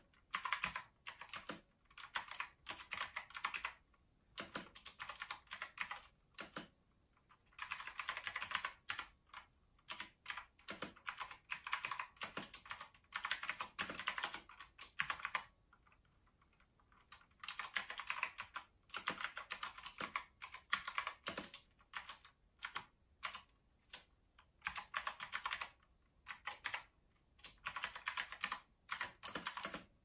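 Fast typing on a Leobog K21 mechanical keyboard with clicky blue switches: dense runs of sharp keystroke clicks broken by short pauses, the longest about halfway through.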